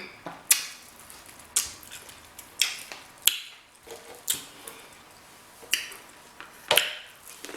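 Close-miked wet mouth sounds of someone eating seafood boil: sharp lip smacks and chewing clicks, about one a second.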